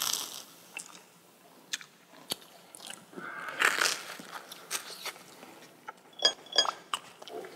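Crunchy bites and chewing of a snack spread with perilla-leaf jam, close to the microphone.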